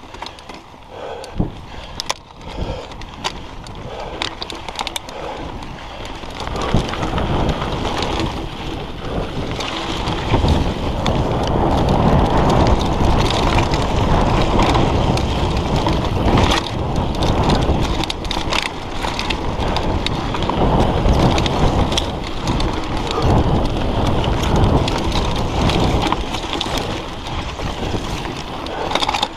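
Mountain bike rolling down a dirt singletrack: tyres crunching over dirt and stones, with the frame and chain knocking and rattling over bumps, and wind buffeting the camera microphone. It gets steadily louder over the first ten seconds as speed builds.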